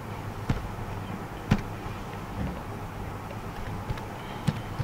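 A few scattered computer keyboard key presses, sharp single clicks, over a steady low background hum.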